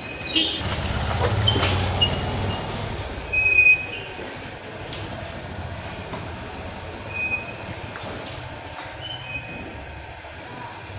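Heavy vehicle or machinery rumbling, loudest over the first few seconds, with short high-pitched metallic squeals and scattered clicks.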